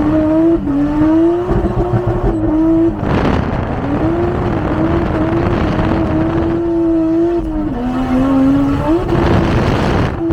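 Toyota 1JZ 2.5-litre inline-six running hard on track, its note climbing and dropping back several times as the car accelerates and changes gear. There are two short loud rushes of noise, about three and nine seconds in.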